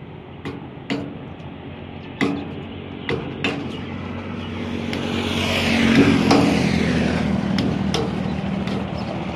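Several sharp knocks of a stone striking a steel rod being driven into a clogged hole in a tractor trolley's steel frame, to clear the hole. A motor vehicle's engine then swells to its loudest about six seconds in and eases off.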